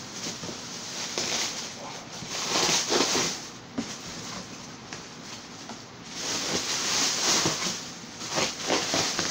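Rustling and crinkling of packaging as a taped cardboard shipping box is lifted and turned over, with plastic wrapping shuffled around it, in several louder bouts with small scraping clicks.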